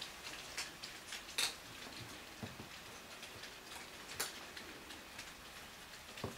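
Scattered light clicks and taps of kittens scrambling and pawing about in a wire pet cage with a plastic base, two sharper clicks standing out, and a dull knock near the end.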